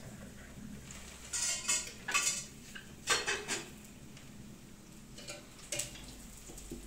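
Stainless steel ladle clinking and scraping against a steel pot and cup as a drink is served, in several short clusters in the first few seconds and two lighter clinks later.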